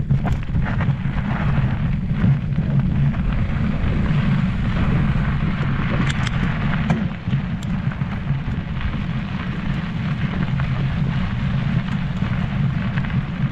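Wind buffeting the microphone as a steady low rumble while mountain bike tyres roll and crunch over a loose gravel and dirt trail, with a few sharp ticks around six to seven seconds in.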